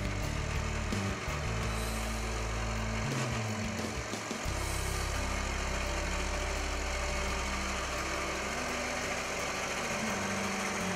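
Case IH 210 MFD tractor's diesel engine running steadily at idle.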